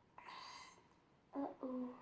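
A half-second puff of breath blown through a drinking straw into slime, trying to inflate a bubble, followed by two short hummed vocal sounds from the girl.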